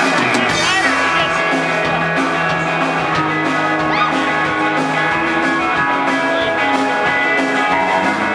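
Live country band playing with electric guitars, bass and drums over a steady beat.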